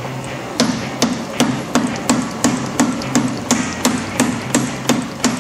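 100-pound Little Giant mechanical power hammer striking red-hot steel with light blows, in an even rhythm of about three a second that starts about half a second in. Its drive motor hums steadily underneath.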